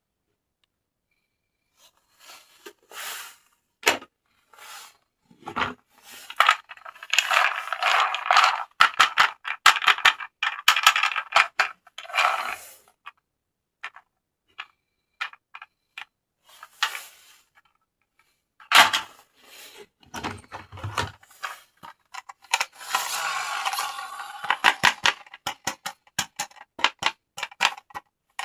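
Plastic toys and packaging being handled: irregular clicks, clinks and crinkly rustling, with denser stretches of rustling in the middle and near the end.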